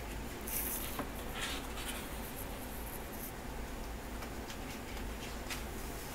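Paper pages of a large photobook being turned and handled: a short rustle of paper about half a second in, then a few faint scrapes and ticks of paper rubbing.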